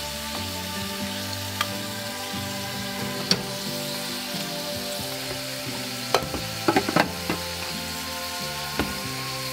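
Ground pork sizzling in oil in a frying pan while a wooden spatula stirs it, with sharp taps and knocks of the spatula against the pan, a quick run of them about seven seconds in.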